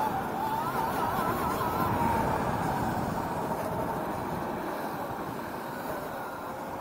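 Prototype electric go-kart driving on a track, heard from on board: a steady rushing rumble with a faint motor whine that wavers early on and then slowly drops in pitch.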